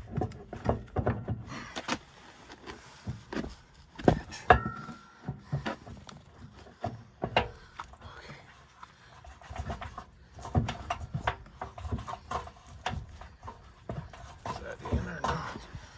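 Irregular metal clanks, knocks and rattles of drive chain, sprockets and hand tools being handled in a skid steer's chain case, with a brief ringing tone about four and a half seconds in.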